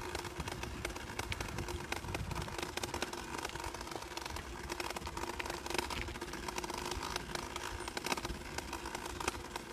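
Bicycle rolling along a paved path: a steady rumble of tyre and road noise with many small rattles and clicks from the moving bike and the handheld phone.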